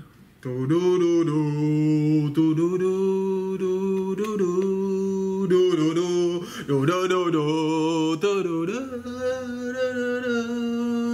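A man singing a slow, solemn chant in long held notes, as a mock funeral dirge. The voice starts about half a second in and steps between pitches, with a brief break partway through.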